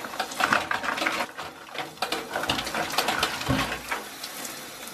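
Shower spray running while hands scrub wet, lathered hair: an irregular, crackly rustle with no steady rhythm.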